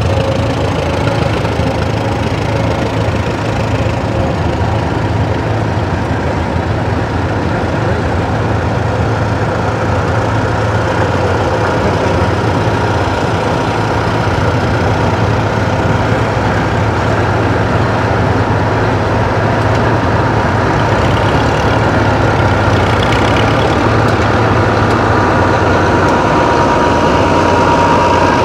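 Engine running steadily.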